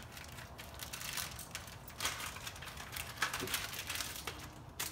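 Clear plastic packaging being handled and crinkled, a run of small irregular crackles and rustles.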